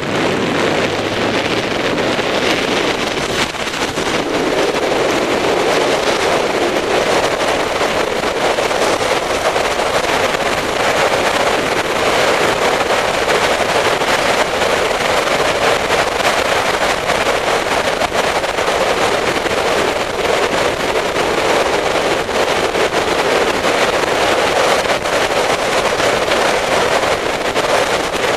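Wind rushing over the microphone of a motorcycle under way, with the engine and tyre noise blended beneath it at a steady cruising speed.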